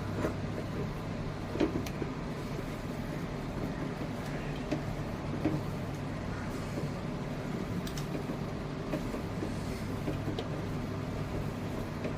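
A spatula clicking and scraping against a pan a few times as a mashed-potato masala mixture is stirred, over a steady low hum.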